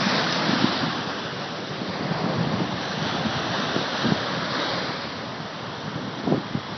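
Ocean surf washing and breaking on the shore, with wind buffeting the microphone in brief low gusts.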